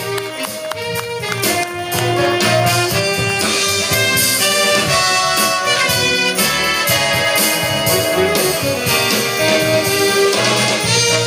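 A youth jazz big band playing live, the trumpets, trombones and saxophones holding full chords that change every second or so.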